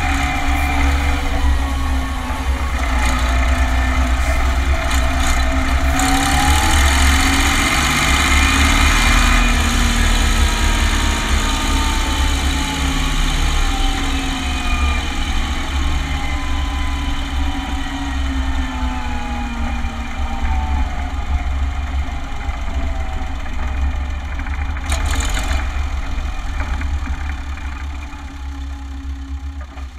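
Renault 120.14 tractor's diesel engine running under way, heard close to the engine: a deep steady rumble whose pitch rises about six to nine seconds in and then falls slowly. There is a short rush of noise about 25 seconds in, and the engine gets quieter near the end.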